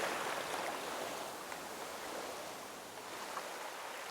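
Steady rush of sea water and wind noise, slowly fading.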